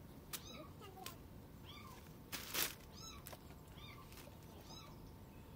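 A cat stuck under a small footbridge meowing faintly, a series of short, high meows about once a second. A brief rustling noise about halfway through is louder than the meows.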